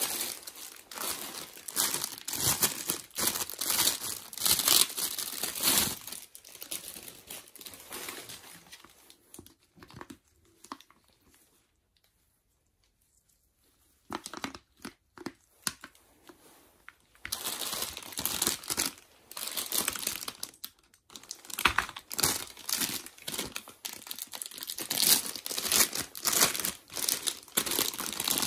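Clear plastic packaging bags crinkling and rustling as they are handled and pulled open, with sharp tearing crackles. It fades to near silence about halfway through, then picks up again and is loudest near the end.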